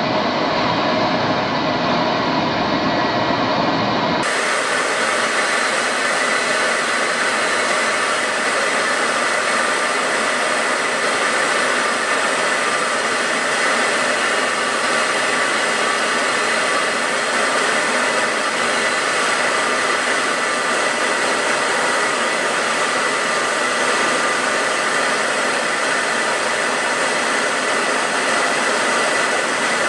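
Steady jet engine and rushing airflow noise of aircraft in flight, an even rush with faint steady tones in it. About four seconds in it changes abruptly to a thinner, brighter rush with less low rumble.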